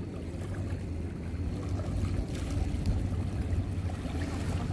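Sea ambience: a steady low rumble with water lapping.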